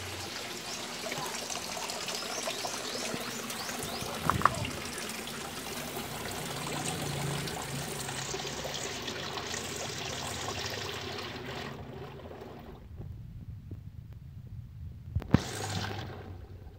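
Water pouring and splashing steadily into a fish pond, dropping much quieter about twelve seconds in. A sharp knock sounds about four seconds in and another near the end.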